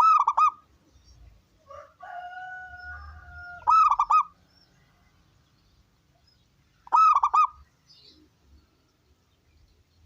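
Zebra dove (perkutut) singing: three short cooing phrases of quick repeated notes, about three and a half seconds apart. A quieter steady held tone sounds for under two seconds between the first two phrases.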